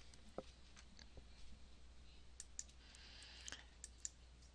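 Near silence: faint room tone with a low hum and a handful of faint, scattered short clicks.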